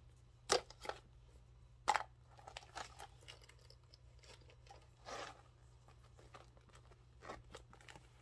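Handbag contents being handled: scattered sharp clicks and taps of small items, with a short rustle about five seconds in.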